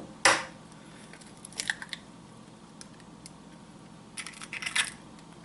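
A brown chicken egg (New Hampshire Red) being cracked by hand: one sharp crack as the shell is struck, then short bursts of crackling as the shell is broken open and the halves pulled apart, once a little over a second in and again near the end.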